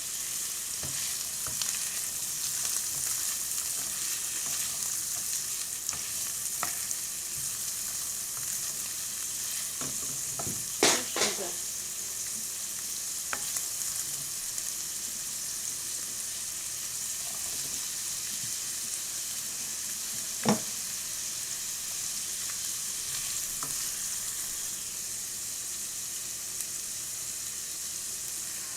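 Food sizzling in a hot pan, a steady hiss, with a utensil knocking against the pan now and then: a quick cluster of knocks about eleven seconds in and one sharp knock about twenty seconds in.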